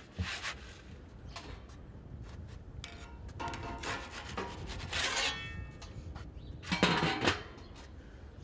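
Wooden pizza peel scraping over a flour-dusted steel worktop and the grill's pizza stone as a pizza is slid on and off it. A louder clatter follows about seven seconds in, as the peel is put down.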